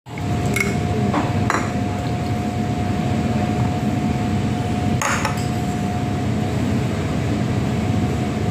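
Background din at a lunch table with a faint steady hum, broken by a few short clinks of tableware, the clearest about five seconds in.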